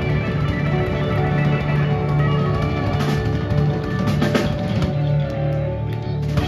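Live rock band playing: harmonica over electric guitars, electric bass and a drum kit, with a low bass note held under the music and a sharp drum hit near the end.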